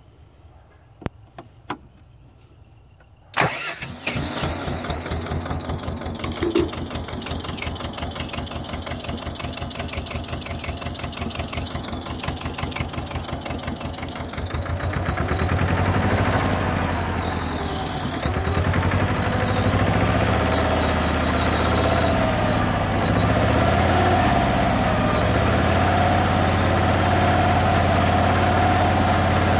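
A few light clicks, then the engine of a Rhino compact tractor, started with a screwdriver in the key switch, catches at once about three seconds in and runs at idle. Around fifteen seconds in it grows louder and then runs steadily.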